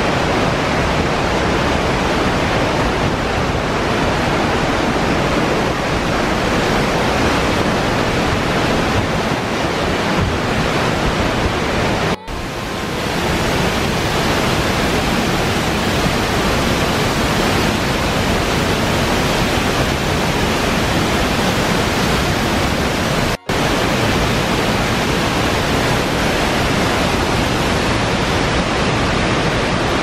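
Waterfall rushing, a loud steady sound of falling water, broken by two very brief dropouts about twelve and twenty-three seconds in.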